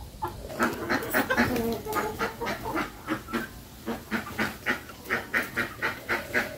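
Several ducks quacking, a dense chatter of short calls that settles into a quick steady run of quacks, about three a second, in the second half.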